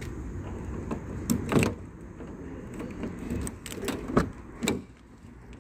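A few sharp knocks and clunks from handling a parked car, such as its door and things being set down inside, over a low steady rumble. The loudest knocks come about one and a half seconds and about four seconds in.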